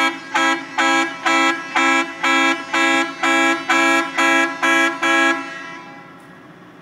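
Heavy truck's horn tooting about a dozen times in quick succession, roughly two toots a second, then stopping with a short fading tail.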